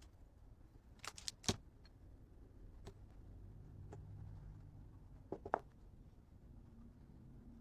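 Small metal parts and tools clinking as they are handled on a workbench during motorcycle cylinder-head work: a quick run of three clicks about a second in, a few light ticks, and another pair of clicks about five and a half seconds in.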